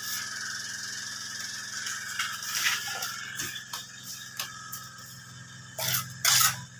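Cement being packed and scraped into place with a hand tool: irregular light knocks and scrapes, with two louder scraping strokes near the end, over a steady hum.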